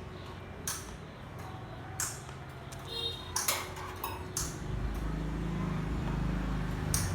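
A table-mounted metal cutting machine hums steadily, with sharp metallic clicks and a short ringing ping as stainless-steel pieces are handled. The motor hum grows louder about halfway through.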